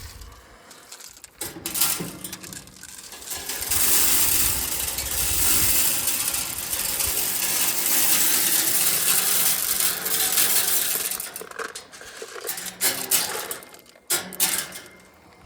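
Dry corn and feed pellets poured out in a steady rattling rush lasting about seven seconds. Clanks and rattles of the metal hog trap come before and after it.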